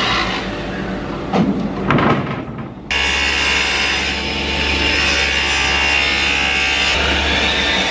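A table saw cuts through a sheet of plywood, with two loud scraping bursts a little over a second in. About three seconds in, the sound changes abruptly to a steady machine hum with a high whine from the workshop machinery running.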